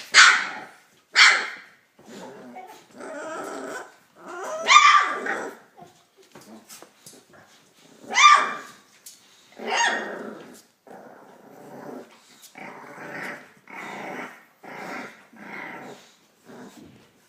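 Three-week-old puppies growling and yipping in short separate cries. Several loud, high yelps come in the first ten seconds, then a run of softer growls about one a second.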